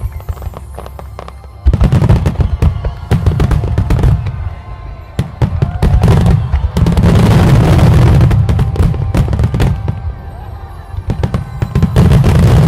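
Fireworks going off in a dense barrage of bangs and crackling that starts suddenly about two seconds in, eases briefly near the end, then bursts loud again.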